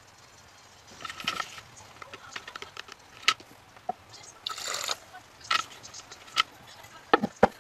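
Metal paint can and a paint-spattered sprayer cup being handled: a string of sharp clicks and knocks, with a short scraping rustle about halfway through and the loudest knocks near the end.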